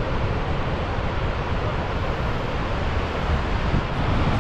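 Steady roar of a powerful waterfall, Gullfoss, a dense unbroken rush of falling water with a heavy low rumble, likely mixed with wind on the microphone.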